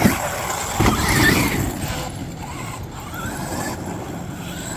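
Large electric RC monster truck (Traxxas XRT) running: a sharp thump right at the start, then a burst of motor whine and tyre noise about a second in.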